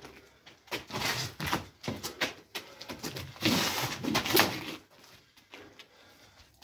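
Sparring sticks knocking together in a series of sharp clacks, amid the fighters' moving about. A denser flurry of strikes comes about three and a half seconds in, then it goes quieter.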